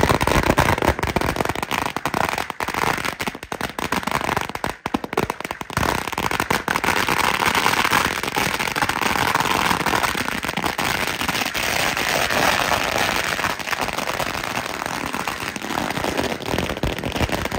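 A long chain of firecrackers going off, a rapid, unbroken string of sharp bangs.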